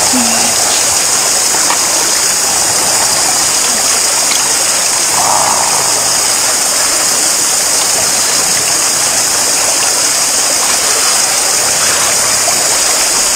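Steady rush of running water from a stream, even and unbroken, with a strong high hiss.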